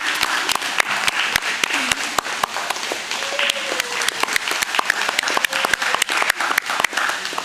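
Spectators applauding steadily, with many individual hand claps and a few voices mixed in; the clapping dies down just after the end.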